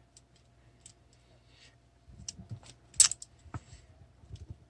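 Sparse small clicks and light taps of a micro drone's plastic frame and wiring being handled. The sharpest click comes about three seconds in, with a second one just after.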